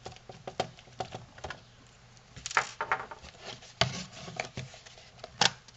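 Plastic clicks and knocks of a Uniden SSE25 cordless phone base's case being handled and opened, with sharper knocks about two and a half, four and five and a half seconds in.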